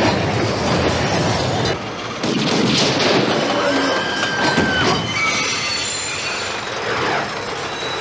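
Film sound effect of a mine cart chase: metal cart wheels rattling and screeching on rails, with a long high squeal about halfway through.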